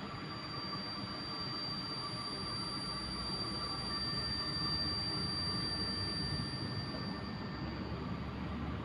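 Train running, a steady rumble with several steady high tones over it, growing a little louder towards the middle.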